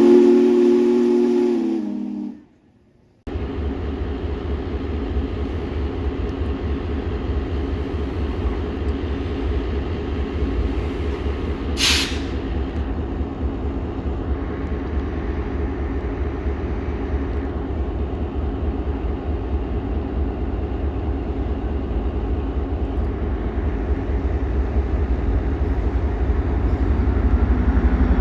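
A train horn blows a chord for about two seconds. After a moment's silence, a train rumbles past steadily, with one sharp click about halfway through.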